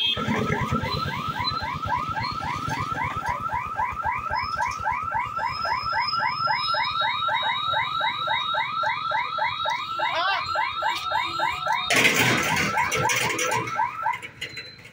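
Railway level-crossing gate warning alarm sounding while the boom barrier lowers: a fast electronic alarm of rising chirps, about four or five a second, that stops near the end once the barrier is down. A brief loud noisy burst comes about twelve seconds in.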